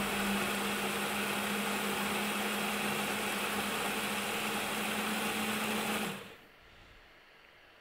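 SilverCrest SSM 180 A1 smoothie maker's motor running steadily under load, its blade churning a jarful of food, with a steady hum. It stops about six seconds in.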